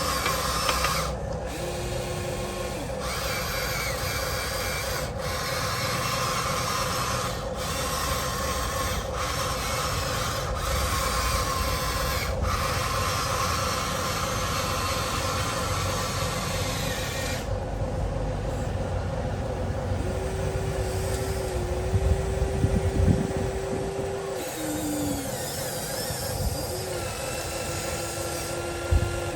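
Electric motors and gearboxes of a radio-controlled model excavator and dump truck running: a steady whirring whine, with higher motor tones starting and stopping as functions are worked, and a few clunks about three quarters of the way through.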